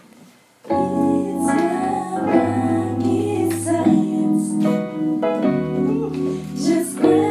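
Background music: a woman singing over held keyboard chords, starting about a second in.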